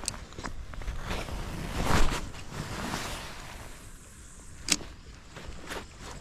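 A spinning rod and reel being cast and worked: a loud rushing swish about two seconds in and a few sharp clicks from the reel, the clearest just before five seconds, over a steady hiss of wind on the microphone.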